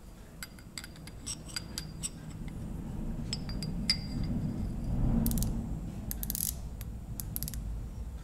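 Small metallic clicks and clinks from a micrometer being closed on a hardened steel parallel bar and turned in the hands. About five and six seconds in there are two short runs of rapid clicking, over a low hum.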